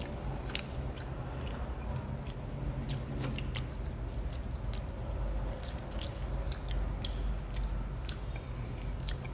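Two people chewing and eating french fries: soft chewing with many small, irregular mouth clicks and smacks, over a low steady hum.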